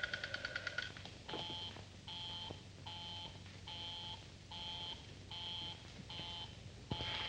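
Telephone busy signal: a steady tone beeping on and off a little more than once a second, the sign that the line called is engaged. It follows a fast rattling ring that stops about a second in.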